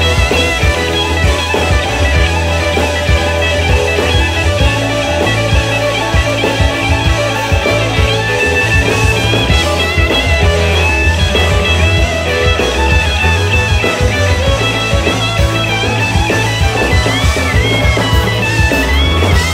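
Live blues band playing with electric guitars, bass, drums and keyboard. The lead guitar slides and bends its notes near the end.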